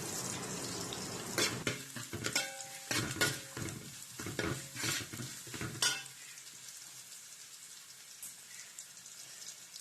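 Spoon stirring and scraping a pan of crushed garlic and spices frying in oil, over a light sizzle. The scraping clicks stop about six seconds in, leaving a fainter hiss.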